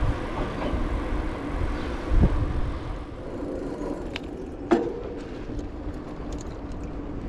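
Riding noise of a mountain bike on Vittoria Terreno tyres: a steady low rumble of tyres and wind on the camera microphone, with two short knocks about two seconds and about five seconds in.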